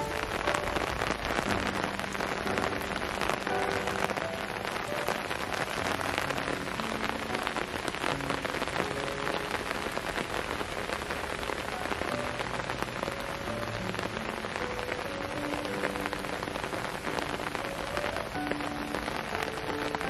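Steady rain falling on a wet paved path, many drops splashing into a shallow sheet of standing water.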